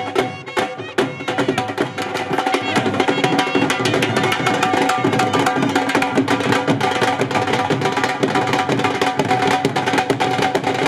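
Dhol drums played with sticks in a fast bhangra rhythm, loud and continuous; the strokes grow denser and steadier about two seconds in.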